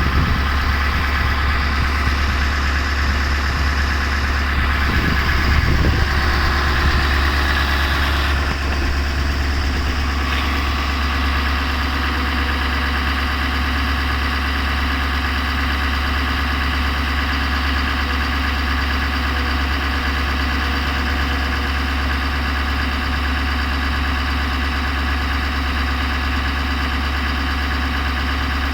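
Pickup truck engine idling steadily, a little louder and busier over the first ten seconds before settling into an even run.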